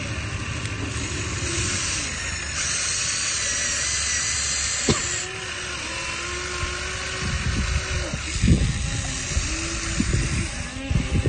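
Small electric motors and gearboxes of a radio-controlled excavator whining as they start, stop and change pitch. A high whine runs through the first half and ends with a sharp click about five seconds in. A cluster of knocks and thumps follows near the end.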